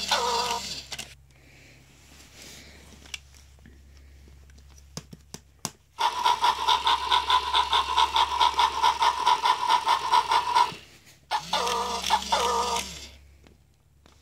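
Tekno robot Dalmatian toy making its electronic sounds: a short patterned sound at the start and again about eleven seconds in, and between them a loud rhythmic buzzing that pulses about five times a second for nearly five seconds. A few sharp clicks come just before the buzzing starts.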